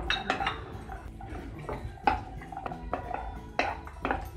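A spatula scraping and knocking against a metal kadai while stirring cashews and raisins frying in ghee, in irregular strokes several times a second.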